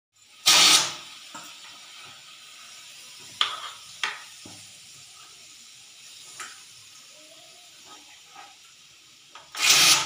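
Pressure cooker's weighted whistle valve lifting and venting steam: a loud hissing blast about half a second in and another near the end, with a few short puffs and a softer steady hiss between.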